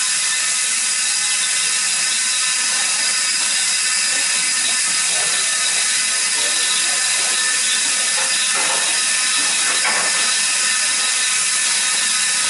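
Steady hiss of steam blowing off from the safety valves of a Stroudley A1 'Terrier' 0-6-0 tank locomotive standing in steam, a sign of full boiler pressure. A few faint clanks come through in the second half.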